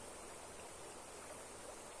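Steady rush of flowing water from a waterfall running strong.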